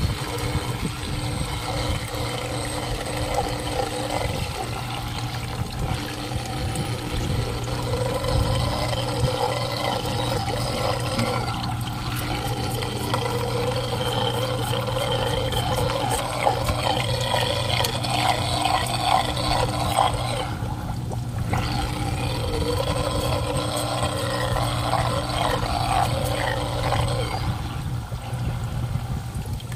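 Water trickling and pouring steadily in an aquaponics system, over a constant low hum.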